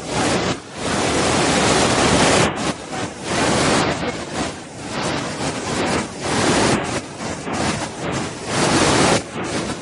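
Waterfall's rushing water, a loud dense hiss whose loudness surges and dips irregularly every second or so.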